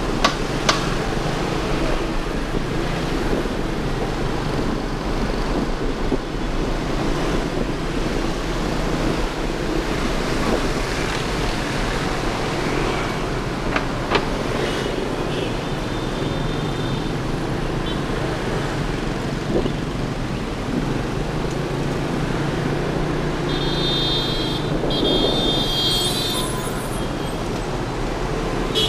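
Motorbike engine and road noise in city traffic, heard from the pillion seat, with a horn honking twice near the end.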